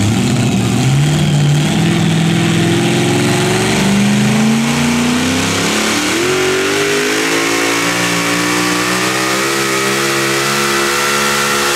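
Engine of a competition pulling vehicle running hard, its pitch climbing steadily as it pulls, with a step up about six seconds in.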